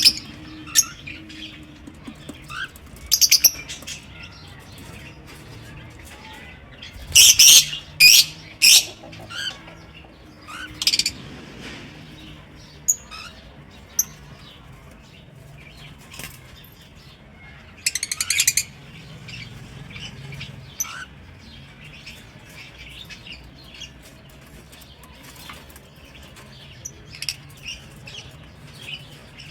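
Lovebirds chirping and calling in an aviary: many short, high chirps throughout, with loud bursts of rapid chattering about three seconds in, again around seven to nine seconds, and near eighteen seconds.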